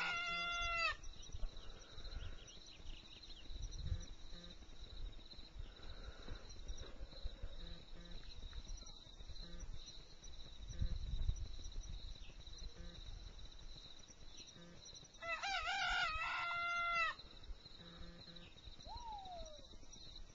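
Black silkie rooster crowing: the held end of one crow in the first second, then one full crow about fifteen seconds in that rises and then holds for about two seconds. Near the end comes a short falling call.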